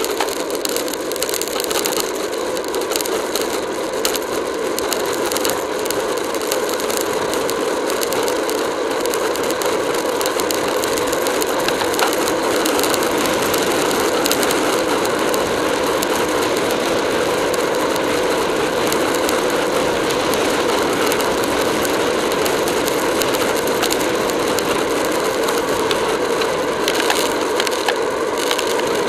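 Road bike at racing speed in a pack: a steady rush of wind and tyre noise with constant fine rattling from the bike and the camera mount, a little louder after the first few seconds as the speed rises.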